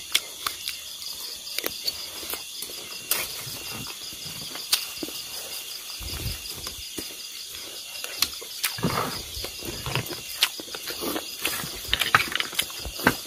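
Steady insect trilling, with scattered sharp clicks and taps of spoons and snail shells against plates.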